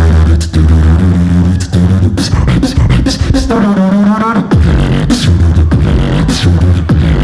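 Solo beatbox routine: deep, held bass tones under a run of sharp clicks, with a wavering higher-pitched vocal sound around the middle.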